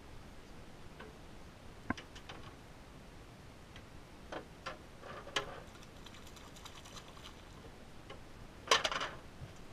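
Close handling noise of a bamboo fishing pole and its line and hook: scattered light clicks and knocks, with a louder short clatter near the end.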